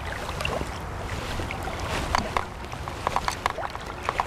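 River water sloshing and lapping, with many small irregular plops and splashes over a steady low rumble.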